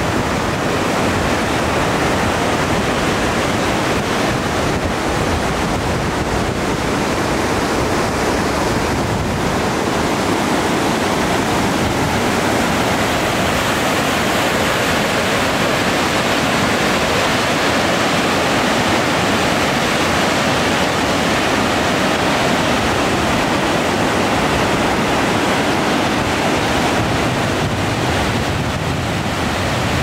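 Whitewater rapids of the Deschutes River at Dillon Falls, rushing loud and steady without letup.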